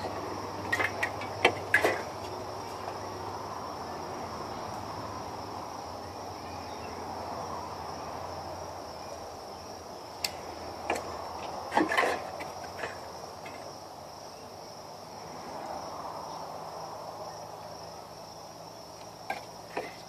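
Empty aluminium drink cans clinking and tapping as they are set into place in a column: a few sharp knocks about a second in and a cluster around eleven to thirteen seconds in. Under them, a steady high-pitched chirring of insects.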